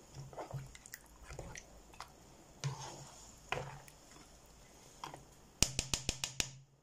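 Spatula stirring a thick tomato-based soup with chunks of meat in a granite-coated pot: irregular wet squelching strokes. Near the end comes a quick run of about seven sharp knocks.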